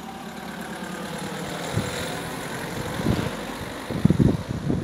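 A motor vehicle passing along the street, its engine and tyre noise swelling to a peak about two seconds in and then easing. Wind buffets the microphone in gusts near the end.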